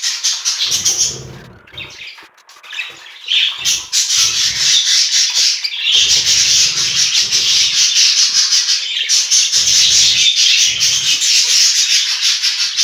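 Budgerigars chattering and warbling continuously in a rapid, high-pitched stream that grows louder about four seconds in, with low rubbing noises now and then.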